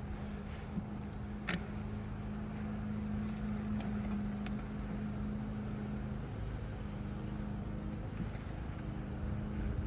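Honeybees buzzing around an open hive, a steady low hum, with a few light clicks from the wooden frames being handled.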